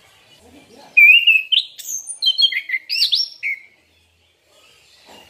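Chestnut-capped thrush (anis kembang) singing one phrase of quick, varied whistled notes and slurs, starting about a second in and lasting about two and a half seconds before cutting off abruptly.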